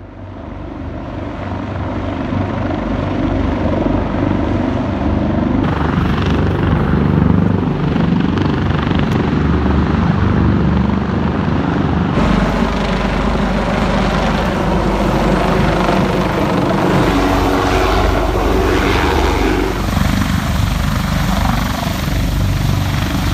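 Coastguard search-and-rescue helicopter, an AgustaWestland AW189, flying low nearby: loud, steady rotor and turbine noise that swells up over the first few seconds and then holds.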